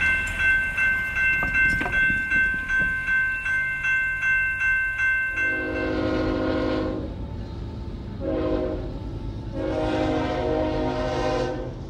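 Railroad crossing bell ringing in steady, even strokes. About halfway through, a CSX diesel locomotive's air horn sounds three blasts for the grade crossing: long, short, long.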